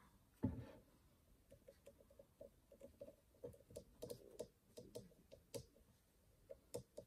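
Faint, irregular small clicks and taps of a fine nail brush placing glitter flakes on a nail tip, with one louder knock about half a second in.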